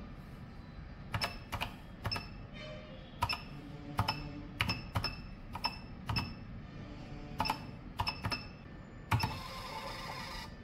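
Keys on an Eromart M2SE billing machine being pressed one at a time, about thirteen presses, each with a short beep from the machine. Near the end, its built-in thermal printer runs for about a second, printing the receipt.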